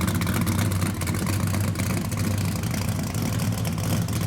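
Engine of a NASCAR-style Buick race car running steadily at idle, with a fast pulsing exhaust.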